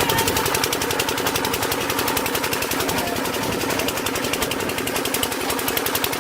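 An engine running steadily, with rapid, even pulses and a steady hum.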